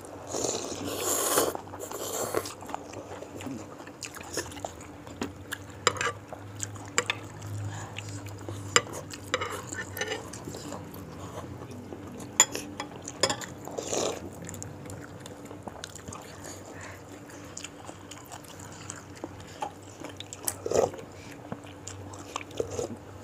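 Close-miked eating of bakso meatball soup: chewing and biting, with many short sharp clicks scattered through and a louder noisy stretch in the first two seconds.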